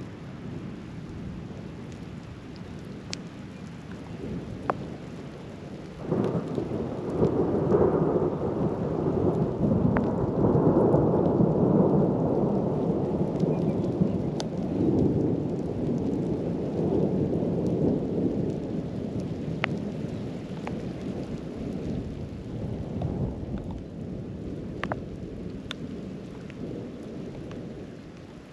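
Rain falling steadily, with scattered sharp drop ticks, during a thunderstorm. About six seconds in, a long roll of thunder breaks in suddenly, rumbles loudly for around fifteen seconds, then slowly dies away.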